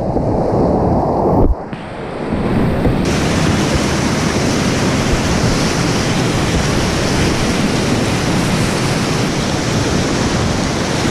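Whitewater rapids rushing and splashing around a river kayak. The sound is muffled and heavy at first, dips suddenly about a second and a half in, and then becomes a steady, full rush of white water.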